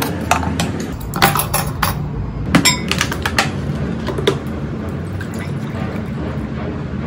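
Spatula scraping sauce out of a small pot and clinking of dishes and utensils on a wooden tray, a string of sharp clicks and knocks in the first four seconds. A steady low background noise runs underneath.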